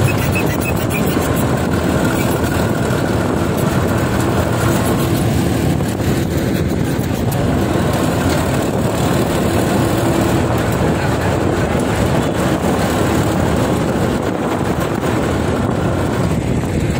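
Sonalika DI 35 tractor's three-cylinder diesel engine running steadily while driving along the road, heard from on board the tractor.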